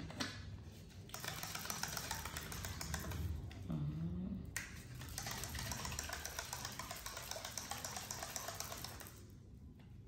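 A plastic baby bottle of formula milk being shaken by hand, a rapid, dense rattle that stops about nine seconds in. A brief low vocal sound about four seconds in.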